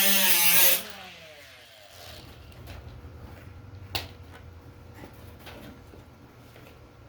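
A high-speed rotary power tool running, then released under a second in, its pitch falling as it spins down. Afterwards a few light clicks and taps over a faint low hum.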